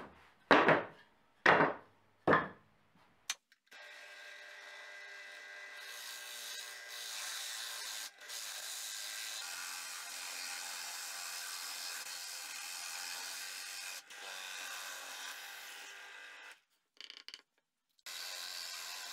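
Three quick strokes of a plywood piece rubbed across sandpaper. Then a drill press bores holes in plywood with a Forstner bit: a steady motor hum under the cutting noise, broken off briefly a few times.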